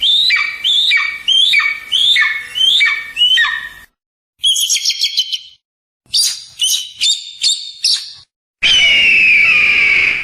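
Kite (cheel) calls: a run of about seven quick shrill, whistled calls, a short rapid trill, about five separate calls, then one long drawn-out call near the end, each group cut off abruptly with a gap of silence between.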